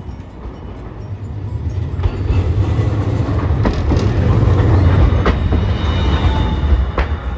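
A low-floor electric tram runs past at close range. Its low rumble builds to a peak mid-way and then eases, with a few sharp clacks from the wheels on the rails.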